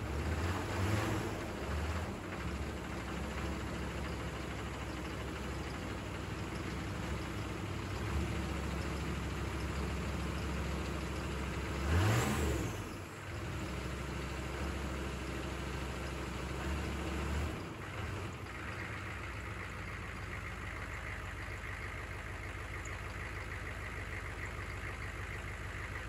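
1996 GMC K3500's 6.5-litre V8 diesel idling just after its fuel system was bled, with one brief rev that rises and falls about halfway through. The low rumble drops to a steadier, quieter idle a few seconds later.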